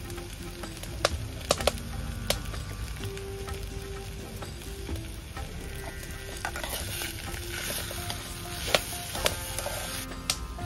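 A metal spatula stirs and scrapes potato bhaji in an aluminium kadai. The frying food sizzles, and the spatula gives a few sharp clinks against the pan.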